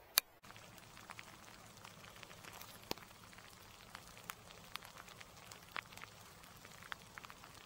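Light rain: scattered raindrops ticking sharply and irregularly close to the microphone over a faint steady hiss, with one sharper click just after the start.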